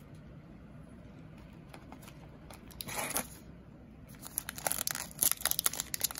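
Trading card pack wrapper crinkling and tearing as it is opened: a brief rustle near the middle, then a quick run of sharp crackles from about four seconds in.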